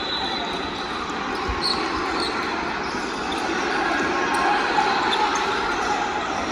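Basketball bouncing on a gym floor amid the steady noise of a game in progress, with a low thump about a second and a half in and a few short, high squeaks soon after.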